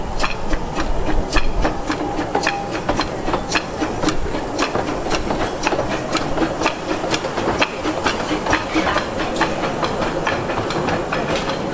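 Ravenglass & Eskdale Railway's 15-inch-gauge steam locomotive Northern Rock running slowly past as a light engine, steam hissing steadily, with a regular run of sharp clicks, about two a second, as it rolls along the track.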